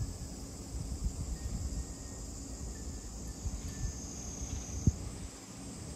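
Steady drone of cicadas, with faint occasional tinkles of glass wind chimes and wind rumbling on the microphone. There is a short bump about five seconds in.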